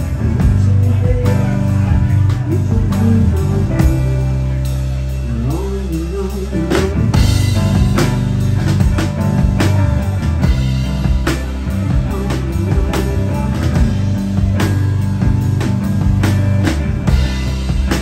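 Live rock band playing: electric guitar, bass guitar and drum kit, with a steady pounding bass, constant drum hits and bursts of cymbal crashes.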